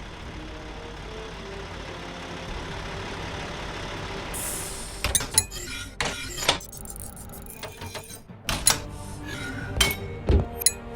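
Background music with a steady hiss under it, then about four seconds in a sudden burst of hiss followed by a series of sharp clinks and knocks from homemade sound effects.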